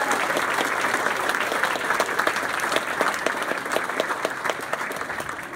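Audience applauding, a dense patter of many hands clapping that gradually dies down toward the end.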